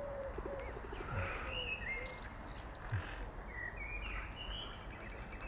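Several parrots chirping and whistling: many short, arching whistled notes overlapping, some low and some high.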